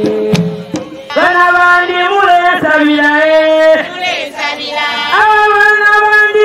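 A woman singing a Zambian traditional song into a handheld microphone in long, held notes, in two phrases. The drumming stops within the first second, and the rest of the singing is unaccompanied.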